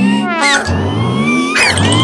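A small cartoon creature's loud, wavering crying wail over background music; the crying grows loudest near the end.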